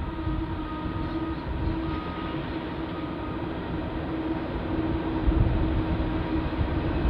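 Pacific National diesel locomotives hauling a loaded coal train as it approaches, with the engines' steady drone over a low rumble that grows slightly louder as the train nears.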